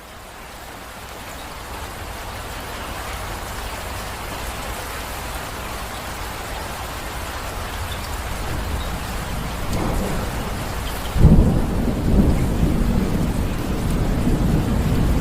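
Steady rain, growing louder over the first few seconds. About eleven seconds in, a sudden clap of thunder breaks in and keeps rumbling in swells.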